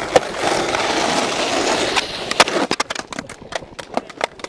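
Skateboard wheels rolling over concrete, then from about two seconds in a quick run of sharp clacks and knocks of the board hitting the ground.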